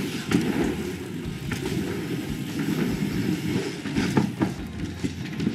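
Mountain bike tyres rolling over a wooden trail deck, a steady low rumble with a few sharp knocks and rattles from the bike, two of them close together about four seconds in.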